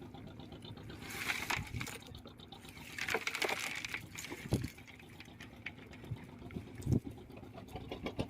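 Water splashing and sloshing in two longer rushes, with a couple of short low knocks later on.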